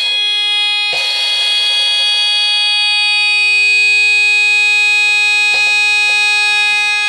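Electric buzzer sealed inside a glass bell jar, sounding a steady, loud buzzing tone with many overtones. A short click breaks it about a second in, and two faint clicks come near the end.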